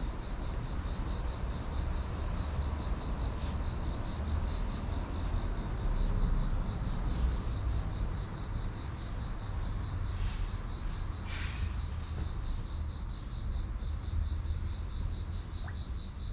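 Insects singing in a steady, high, finely pulsing chorus over a constant low rumble.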